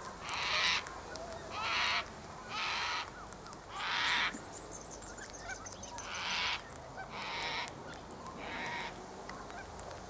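A cockatoo gives a run of seven harsh screeches, each about half a second long and roughly a second apart, with a short pause in the middle. A faint high twitter sounds during the pause.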